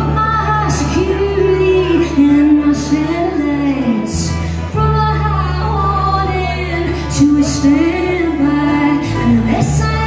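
Live band music: a woman singing lead over strummed acoustic guitar and electric bass.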